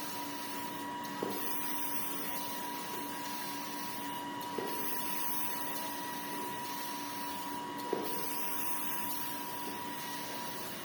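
Automatic band saw cutting machine for jumbo tissue rolls running, a steady hiss with a constant hum and high whine, and a sharp click about every three seconds.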